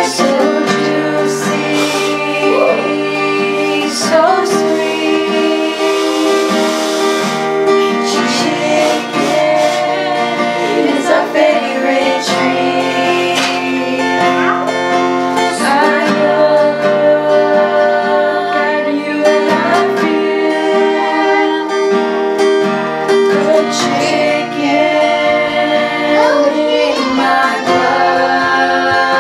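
Several girls singing together to an acoustic guitar.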